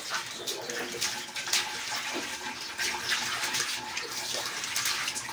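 Running water splashing, with many quick irregular splashes, as soap lather is rinsed off a face by hand.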